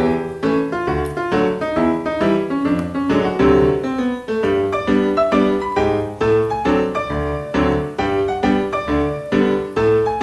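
Background piano music: a steady, even run of struck notes.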